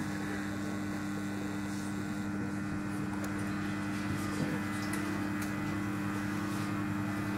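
A steady low hum made of a few even tones, with a few faint light clicks.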